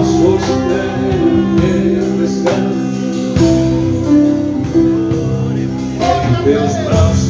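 Gospel worship music: singing over instruments, with long held notes and a few sharp percussive strokes.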